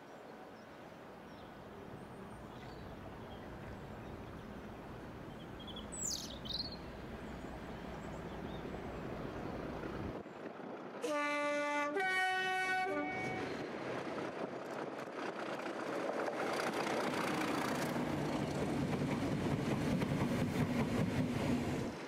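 Class 37 diesel locomotive with its English Electric V12 engine hauling a train, its rumble growing steadily louder as it approaches. About eleven seconds in, its two-tone horn sounds two short notes of different pitch. The engine and wheels then pass close by and loud.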